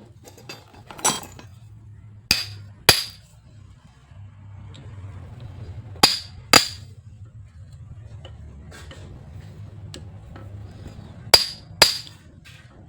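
Sharp metallic clinks of a metal tool on alternator parts, mostly in three pairs about half a second apart, over a low steady hum.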